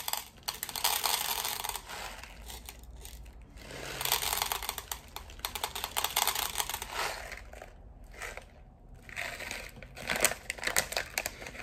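Plastic bag of hard wax beads crinkling as it is handled, in three stretches of rustling.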